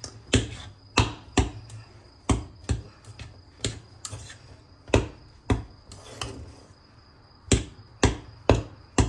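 Metal stirring fork knocking against a stainless steel pot while stirring and breaking up crumbly phuthu (stiff maize meal porridge). The sharp clacks come unevenly, one or two a second.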